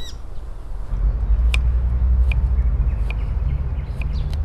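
Low rumble of a passing motor vehicle, swelling about a second in, with a bird's short high chirp repeating about every three-quarters of a second.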